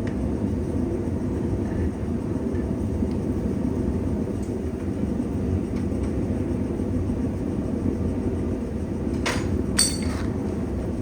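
Blacksmith's forge running with a steady low roar, and two metallic clinks near the end, the second ringing briefly like struck steel.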